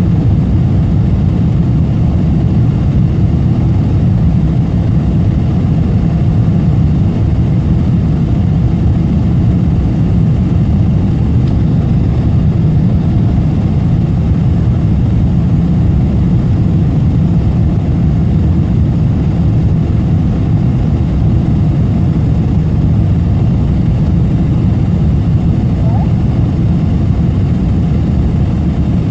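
Jet airliner cabin noise: a steady, even low rumble of the engines and airflow heard from inside the passenger cabin.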